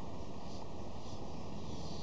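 Steady background hiss and low rumble of outdoor ambient noise, with faint soft high-pitched pulses repeating about twice a second.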